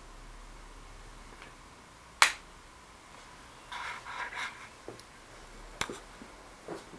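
A few sharp clicks over quiet room tone with a faint steady hum: a loud one about two seconds in, another a little before the end, with a short scuffing noise near the middle.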